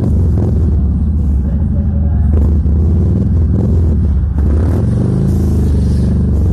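Loud, steady engine rumble from motor vehicles, with a dense low drone that holds without a break.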